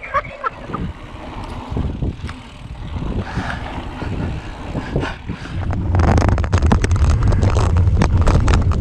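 Mountain bike descending a dry dirt trail: tyres rumbling over rough ground and the bike knocking and rattling over bumps, with wind buffeting the microphone. The rumble grows much louder from about six seconds in.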